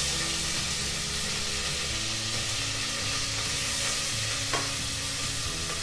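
Chopped onion going into hot oil in a pot where mustard seeds have just popped, and frying with a sudden, steady sizzle. There is one short click a little past the middle.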